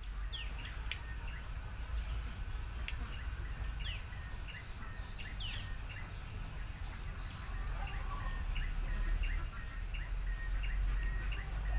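Outdoor nature ambience: a steady high-pitched insect whine that cuts off about nine seconds in, a short high note repeating about once a second, and a few quick falling bird chirps, over a low rumble.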